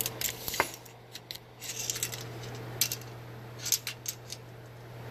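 Sharp metallic clicks and light clatter in several short clusters as a tape measure is handled and laid against a hydraulic steering cylinder, over a steady low hum.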